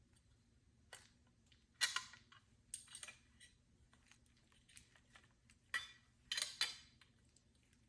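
Small metal clicks and clinks as the parts of a metal door handle are handled and worked apart after its set screws are loosened, a few scattered knocks with the loudest cluster near the end.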